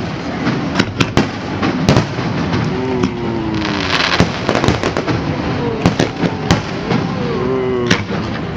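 Aerial fireworks shells bursting overhead in rapid succession: a string of sharp bangs at uneven intervals, with a short spell of hissing crackle near the middle.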